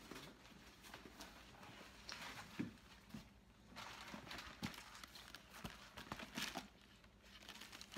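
Faint rustling and a few light knocks as a large Coach Field Tote bag is handled, its strap and handles moved about.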